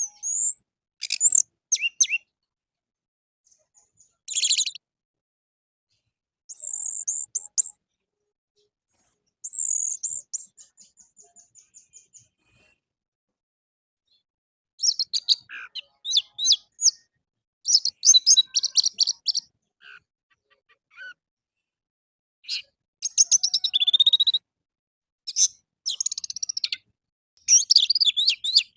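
Orange-headed thrush singing: separate bursts of varied, high-pitched whistled and chattering phrases with short pauses between them, one phrase a quick run of repeated notes that fades away.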